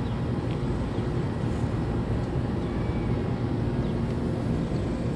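A steady low rumble of outdoor background noise, with no distinct events.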